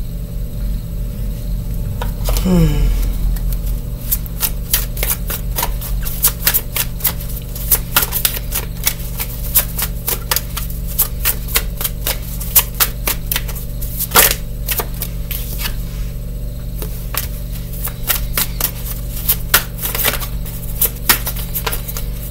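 A deck of tarot cards being shuffled by hand: a dense, irregular run of card clicks and flicks from about three seconds in. Just before it, a brief falling voice sound.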